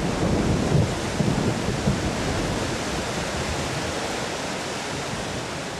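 Torrential rainstorm: a steady, dense hiss of rain with low rumbling in the first two seconds or so, slowly growing quieter.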